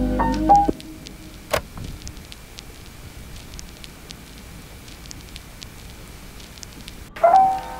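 Background piano music ends less than a second in, leaving a faint, even crackle with scattered sharp ticks. Music starts again suddenly near the end.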